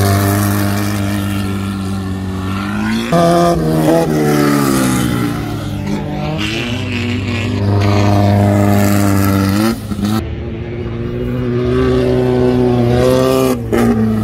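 Volkswagen-engined dirt race cars accelerating hard past at full throttle, loud. The engine note climbs and drops sharply at each upshift, about three times.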